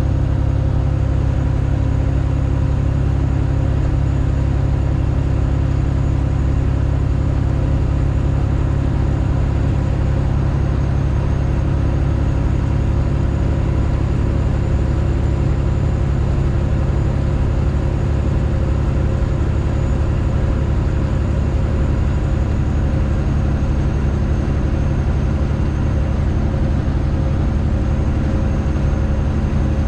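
Straight-piped Detroit Diesel engine in a Freightliner Classic XL semi truck, running at a steady pace with a loud, even, deep drone.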